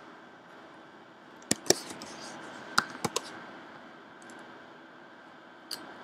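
A few sharp clicks of computer mouse and keyboard use: two about a second and a half in, three more quickly in a row around three seconds, and one just before the end, over faint room hiss.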